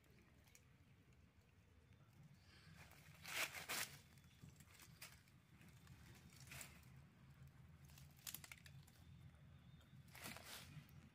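Faint crunching and rustling of dry fallen leaves underfoot, in a handful of short bursts with quiet between, the loudest about three and a half seconds in.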